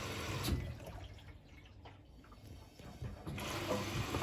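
Bosch Serie 4 front-loading washing machine filling: water rushing in through the inlet onto the clothes in the drum at the start of the wash cycle. The flow drops away about half a second in and picks up again near three and a half seconds.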